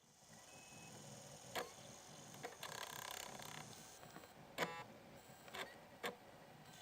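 PowerBook G4's slot-loading optical drive taking in and trying to read a DVD-R: faint mechanical clicks, a short whirr a little over two seconds in, and a brief buzzing click with further clicks near the end.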